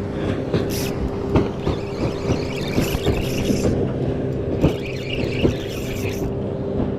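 Boat engine running with a steady hum, with frequent knocks and bursts of hiss over it.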